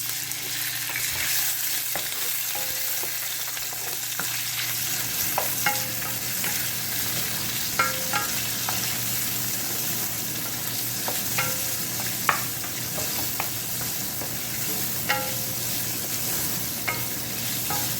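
Shrimp sizzling in hot oil in a pan, a steady hiss, while they are stirred. A utensil knocks against the pan now and then, each knock leaving a brief metallic ring.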